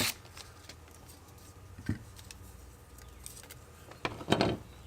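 Light handling of the smart switch's box and packaging: a few soft clicks and rustles, with a louder cluster about four seconds in.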